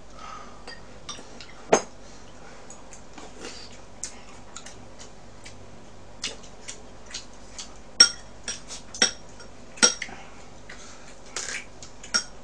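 Chopsticks clicking and tapping against dishes and a pan while eating: scattered sharp clicks at uneven intervals, a few of them briefly ringing, the loudest around eight and ten seconds in.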